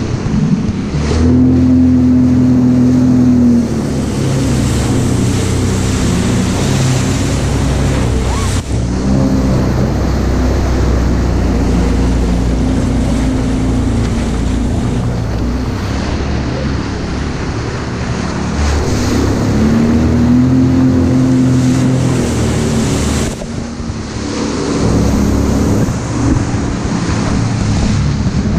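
Jet ski engine running at speed, its pitch rising and falling a few times with the throttle, over the rush of water spray and wind on the microphone.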